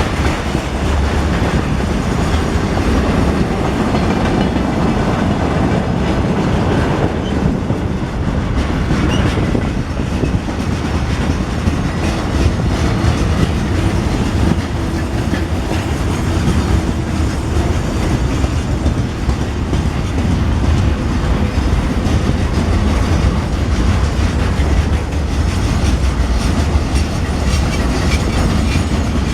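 Railway wagons rolling past steadily, wheels clicking over the rail joints.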